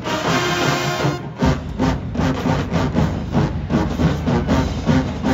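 HBCU show-style marching band playing: a held chord about a second and a half in gives way to a driving, heavy beat.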